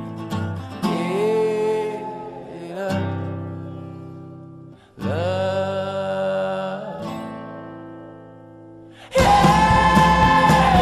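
A background song led by acoustic guitar, with singing in places: chords are struck and left to ring and fade. About nine seconds in, the music turns loud and full.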